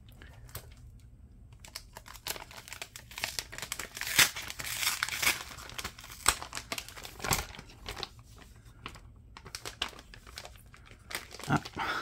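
Silver anti-static shielding bag crinkling and crackling as it is handled and its taped label seal is peeled open, starting about two seconds in.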